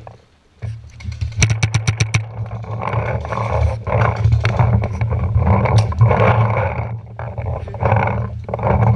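A paintball marker fires a rapid burst of about eight shots in under a second. Then come repeated rustling, thudding noises of a player moving over dry leaves and gravel toward a bunker, over a steady low rumble of wind and handling on the camera.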